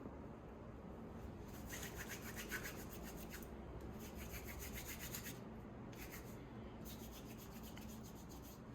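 Hands rubbing in quick, repeated strokes in several short spells: plumber's putty being kneaded and rolled between the hands, stiff from the cold, to seal a sink strainer.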